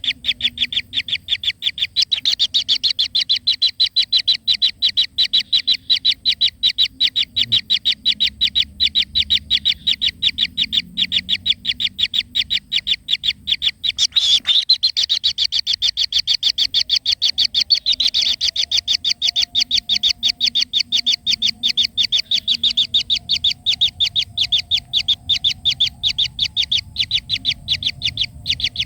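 A rapid, steady train of short high-pitched chirps, about ten a second, going on without a break.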